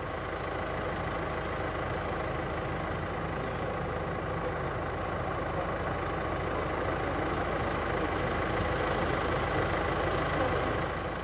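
A patrol car's engine idling steadily, with a thin high whine running over it.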